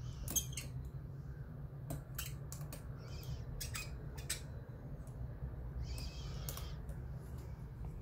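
Scattered small metallic clicks and brief scraping from a dedicated pick tool being worked inside a Cisa Astral cylinder lock, over a low steady hum.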